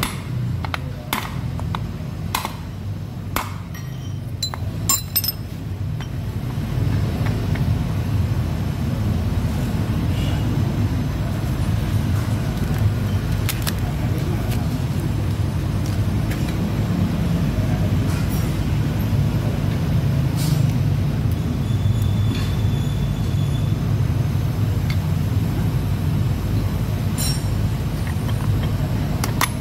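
Sharp metallic taps, about one a second for the first six seconds and then a few scattered ones, as a steel pipe drift is struck to seat a new ball bearing into a Yamaha X-Ride's aluminium final-drive gear case. A steady low rumble runs underneath throughout.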